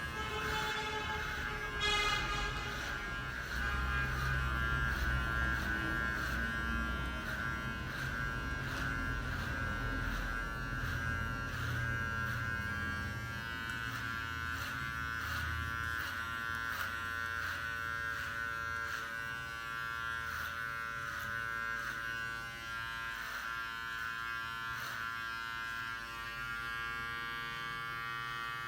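Cordless hair clipper with a rebuilt, upgraded motor running at full speed: a steady electric buzz. It is being test-run after the motor and battery upgrade, at about 7,000 rpm.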